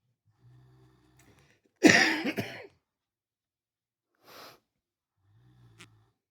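A sleeping dog snoring softly in short low buzzes, with one loud, sudden snort about two seconds in and a short breath in between.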